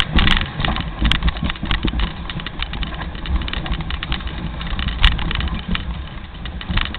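Dog sled running downhill over snow: a steady low rumble from the runners with many irregular clicks and knocks from the sled.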